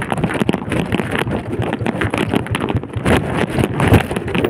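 Wind buffeting the microphone on a moving motorcycle, an old Yamaha Vega, going down a steep descent, with its engine running under the noise and frequent short knocks from the rough road.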